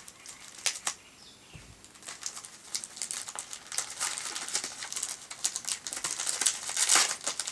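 Gift wrapping paper being pulled open: irregular crinkling and rustling, sparse at first and getting busier and louder from about two seconds in.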